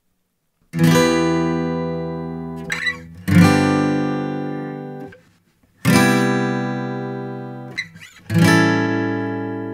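Acoustic guitar playing four strummed chords, each left to ring out, with brief fret squeaks as the fingers shift between chords. The guitar runs through a de-esser that softens the squeaks for a slightly smoother sound.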